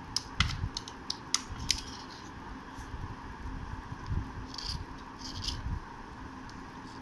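Small metal blade scraping the face of a slate triangle in short, crisp strokes. Several come in quick succession over the first two seconds, then a few softer strokes follow a little past the middle.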